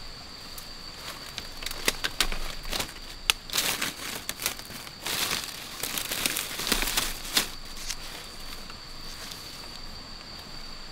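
Dry bamboo leaves and twigs crackling and crinkling as a hand pushes through leaf litter and grabs a green bamboo stem. The crackles come in irregular bursts, thickest in the middle, over a steady high insect trill.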